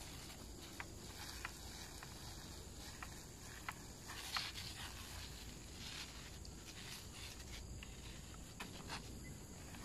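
Soft spurts of spray from a handheld pump sprayer's wand, with scattered light clicks, over a faint steady high hum.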